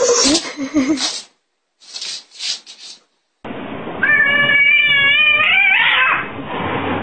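Domestic cat giving one long, drawn-out meow that rises in pitch at its end. It is preceded by two short noisy bursts.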